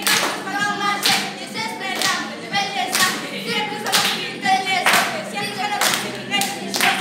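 A group of girls singing a pop song together while clapping along, the claps landing about once a second.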